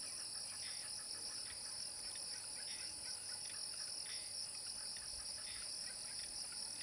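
A steady, high-pitched insect chorus: two shrill tones held without a break, with faint scattered chirps underneath.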